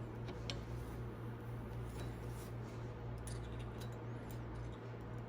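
Faint, scattered light metal clicks and taps of a magnetic screwdriver and small valve keepers against the valve spring retainer and valve stem as the keepers are worked into place, over a steady low hum.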